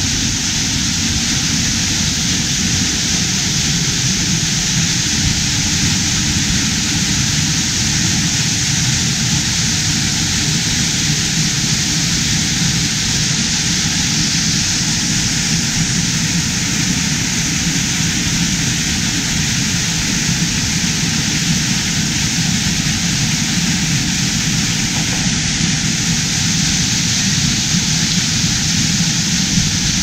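Waterfall pouring onto rock: a loud, steady, unbroken rush of water.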